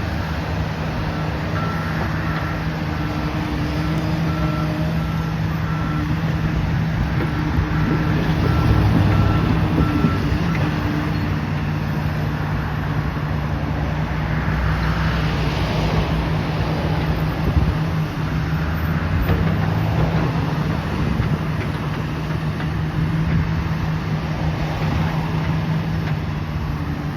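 A heavy vehicle's engine running steadily, with a backup alarm beeping about once a second that stops about ten seconds in.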